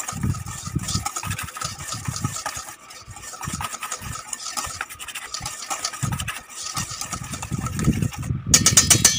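Eggs being beaten in a bowl, a rapid, irregular run of stirring strokes.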